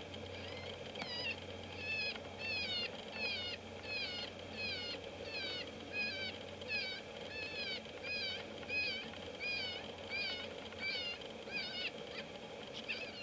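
Electronic predator caller playing a distress call to lure coyotes: a rapid, very regular series of short, high, falling cries, about two a second.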